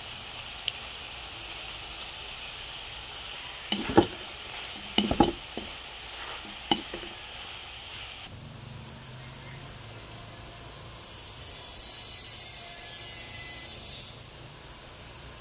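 Vegetables, squid balls and diced ham stir-frying in a wok: a steady sizzle, with a few sharp knocks against the pan about four to seven seconds in. The sizzle grows louder and hissier about eleven seconds in, then settles back near the end.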